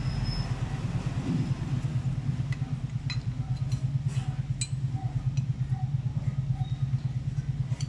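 A few light metallic clinks of a gear wrench against engine metal, over a steady, low, fluttering mechanical drone.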